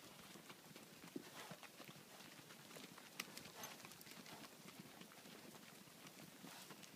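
Faint, irregular clops of horses' hooves walking over dry steppe ground.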